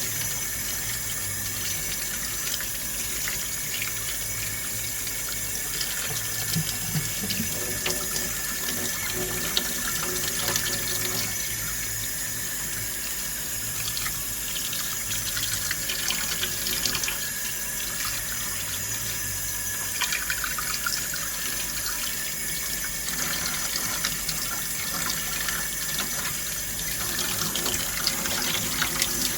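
Water running steadily from a tap into a sink, with a few faint light knocks mixed in.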